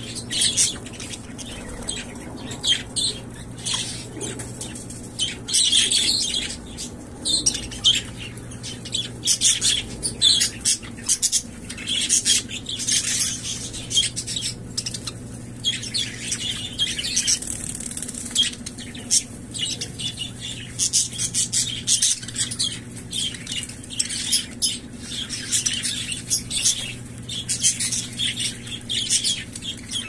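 A group of budgerigars chattering continuously in quick, high, irregular chirps and warbles, with flutters of wing flapping.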